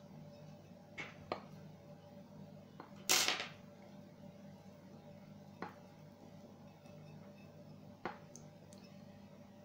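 Small clicks and taps of metal and plastic parts being handled as a laser module is taken apart by hand. A brief, louder scraping rustle comes about three seconds in, over a faint steady low hum.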